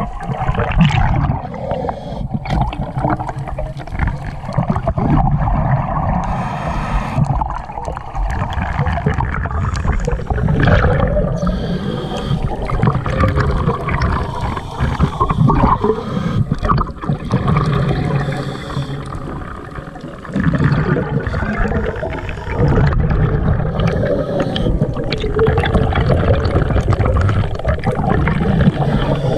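Scuba breathing underwater: the gurgling, rumbling bubble stream of exhaled air from a regulator, with a higher hiss at times from the regulator on the inhale.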